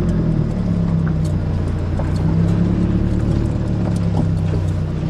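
Car engine idling steadily, a low even hum with a few faint clicks over it.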